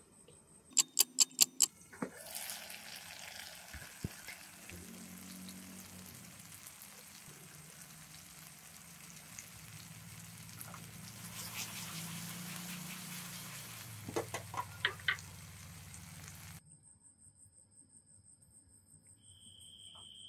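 Fish in a thick tomato sauce simmering and sizzling in a stainless steel wok. There is a quick run of five sharp clicks about a second in and a few more about three-quarters of the way through. The cooking sound stops abruptly near the end.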